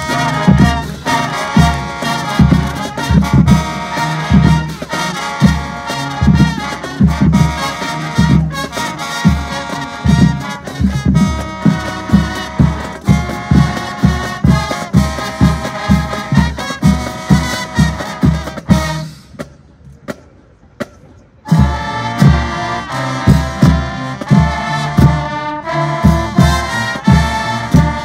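High school marching band playing a brass-heavy tune over a steady drum beat, with sousaphones in the horn line. About two-thirds of the way through the music stops for roughly two seconds, then the full band comes back in together.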